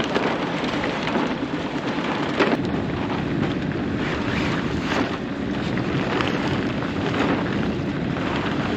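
Steady wind buffeting the microphone aboard a sailboat under way, a loud even rush with occasional gusts.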